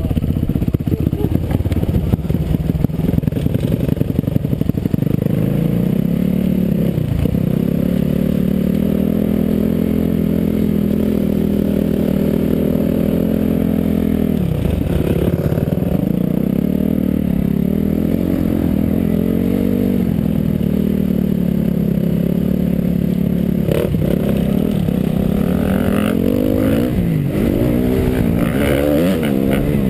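Motocross dirt bike engine at full riding pace, revving up and down through the gears. The throttle is cut briefly a few times, and there are quick rises and falls near the end.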